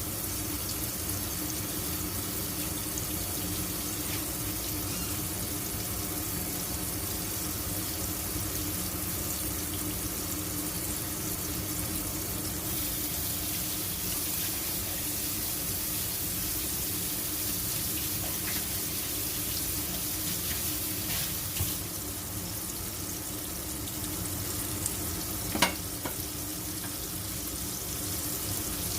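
Food sizzling steadily in a frying pan, with a sharp knock a little after twenty seconds in and a louder one about four seconds before the end, as from a utensil striking the pan.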